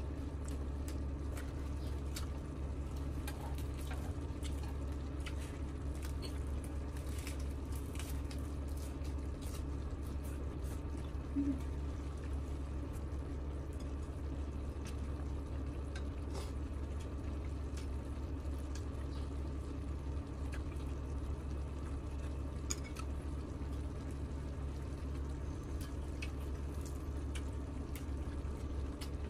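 Beef and octopus in sauce bubbling steadily in a hot grill pan, with scattered small clicks of chopsticks and the sounds of eating.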